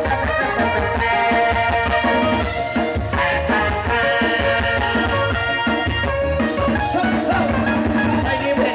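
A small live band playing through a loud PA sound system, with sustained melody notes over a steady bass beat.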